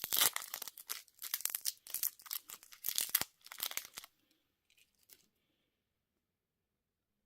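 Candy or surprise-egg wrapper being torn open and crinkled in close-up, a dense crackling rustle that stops about four seconds in, followed by a couple of faint rustles and then silence.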